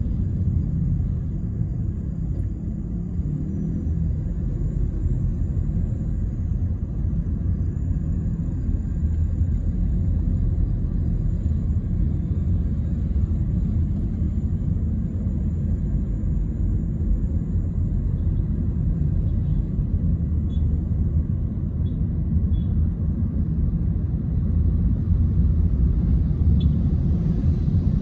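Car interior noise while driving in slow traffic: a steady low rumble of engine and tyres heard from inside the cabin.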